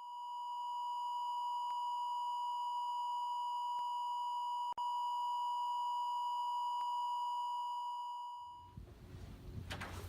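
A steady, high electronic beep tone at one pitch, held for about eight seconds with a brief dropout near the middle, then fading out. A low rumble and a few knocks follow near the end.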